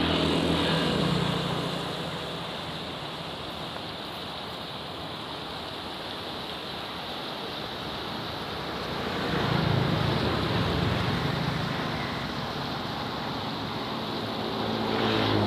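Steady rush of a fast-flowing, muddy river, with wind on the microphone. It swells louder near the start and again about nine seconds in, with a low hum underneath.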